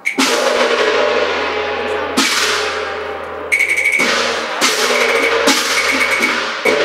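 Cantonese opera percussion striking up the opening of a piece: loud crashes of gongs and cymbals that ring on, with wood-block clacks. There are about half a dozen irregularly spaced crashes.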